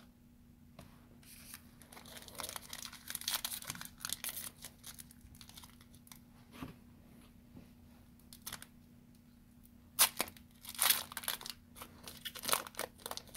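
A foil trading-card pack (2018 Diamond Kings baseball) being torn open and crinkled by hand. Quiet crinkling runs through the first few seconds, then louder tearing and crackling of the wrapper come in two clusters near the end.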